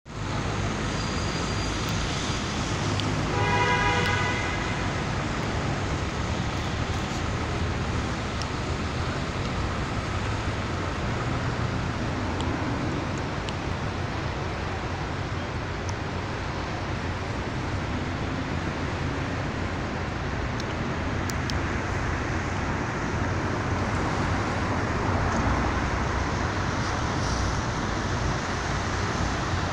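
Steady city road traffic noise, with a short vehicle horn toot about three seconds in.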